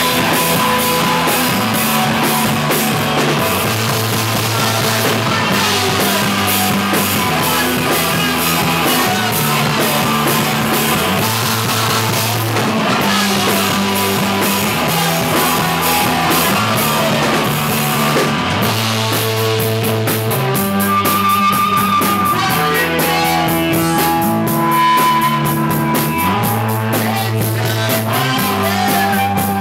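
Rock band playing a loud, driving instrumental passage on electric guitar, bass and drum kit, with steady cymbal strokes. A little past halfway the drumming thins and held guitar notes come forward.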